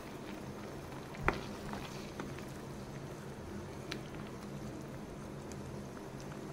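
Grated beetroot cooked in milk bubbling in ghee in a nonstick pan, stirred with a wooden spatula, with small pops and a low steady hum underneath. A single sharp knock comes about a second in.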